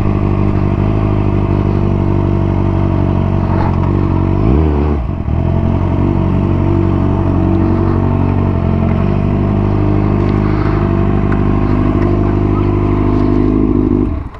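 600cc motorcycle engine running under way, with a brief dip and recovery in revs about five seconds in. The engine sound drops away abruptly near the end.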